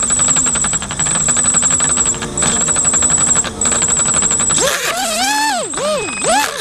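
Small brushless motors of an FPV racing quadcopter caught in a tree's branches: a fast, even rattle under a steady high whine. About two-thirds through, the motors start revving up and down in short bursts, each a whine rising and falling in pitch, as the pilot blips the throttle to shake it free.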